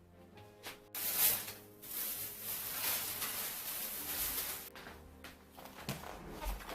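Soft background music, and about a second in a loud, even hissing noise that runs for about four seconds and cuts off suddenly.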